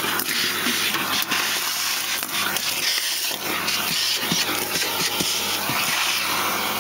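Vacuum cleaner running through a homemade cyclone separator as it sucks up dry leaves and shed debris, with a steady rushing hiss and many small clicks and rattles of debris going through the hose.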